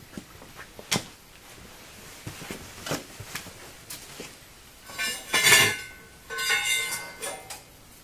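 Metal clanking and clinking with a ringing tone, in two bursts in the second half, after a couple of sharp knocks earlier on.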